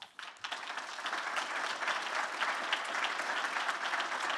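Audience applauding, swelling within the first half second and then holding steady.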